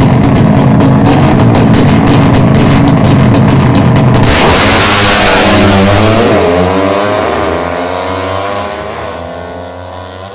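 Tuned-up motorcycle engine running hard at high revs. About four seconds in, its pitch drops and rises as the throttle changes, and it grows steadily fainter as the bike moves away.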